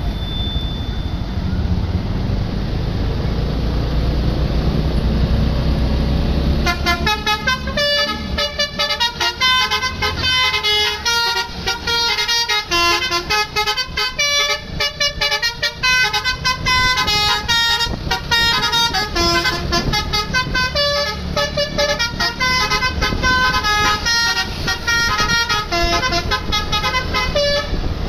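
Tour bus's Basuri 'telolet' multi-tone air horn playing a fast melody of quickly changing notes, starting about seven seconds in and going on without a break. Before it starts, only the low rumble of the bus engine and traffic.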